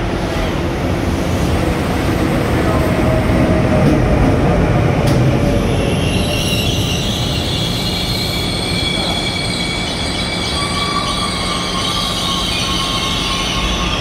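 Korail passenger train pulling into the platform: a steady low rumble of the cars rolling on the rails. From about six seconds in, high-pitched squealing joins it as the train slows for its stop.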